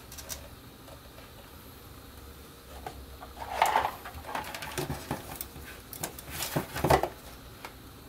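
Handling noise: rustling and a series of light taps and knocks as a hand and sleeve reach across the bench, strongest about halfway through and again near the end, over a faint steady low hum.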